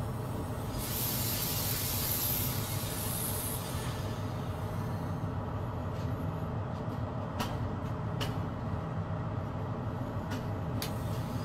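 Train locomotive's engine running steadily, heard from inside the cab, with a hiss of air about a second in that lasts a couple of seconds as the brakes are worked. A few light clicks come later.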